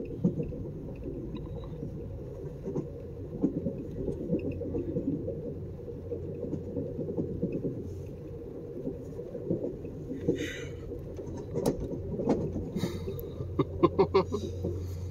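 Passenger train running, heard from inside the car: a steady low rumble with scattered clicks and knocks, and a quick run of sharper knocks near the end.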